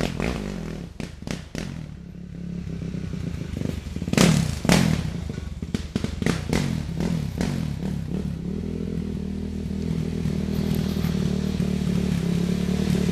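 Yamaha YFZ450 quad's single-cylinder four-stroke engine running steadily at low revs, which becomes the main sound from about six seconds in. Before that there are irregular thuds and clatter, with two loud ones about four to five seconds in.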